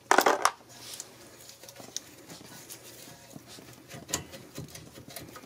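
A sharp metallic clatter near the start, then light metal clicks, taps and scrapes as a rear disc-brake caliper is handled and worked loose from its bracket.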